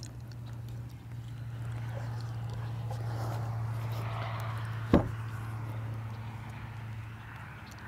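A single sharp knock on the boat about five seconds in, the storage compartment lid shutting, over a steady low hum.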